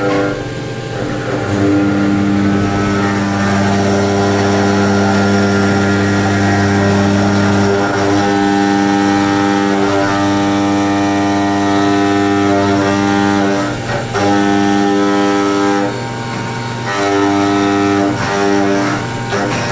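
CNC machine cutting a mould: a steady, loud machine hum with overtones that shifts in pitch and level and briefly drops out several times as the cut changes.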